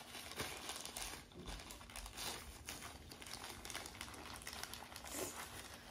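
Faint, irregular crinkling of a plastic packaging pouch being handled and torn open.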